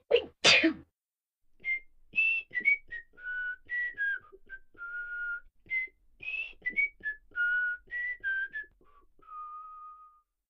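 A person whistling a tune of clear, short notes that step up and down, ending on a longer held low note. A brief laugh comes just before the whistling starts.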